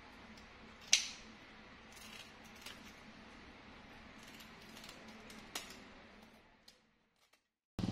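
Kitchen scissors snipping over a bowl: a few sharp clicks and snips, the sharpest about a second in, the sound fading out near the end.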